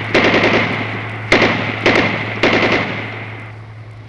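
Airsoft guns firing in sharp bursts, four of them within about two and a half seconds, each fading out, with a steady low hum underneath.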